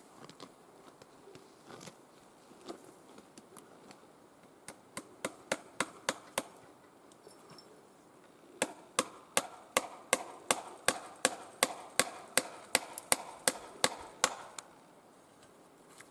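Two runs of sharp, evenly paced hammer strikes, about three a second. A short run of about six comes a few seconds in, and a longer run of about eighteen starts just past the middle.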